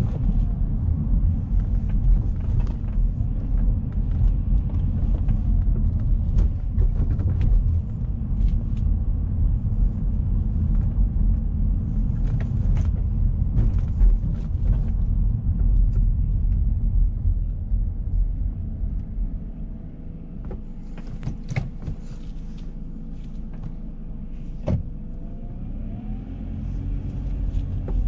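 Alfa Romeo 159 driving: a steady low rumble of engine and road noise. It eases off and grows quieter for several seconds past the middle, then builds again near the end with a rising engine tone. Scattered short clicks and knocks sound over it.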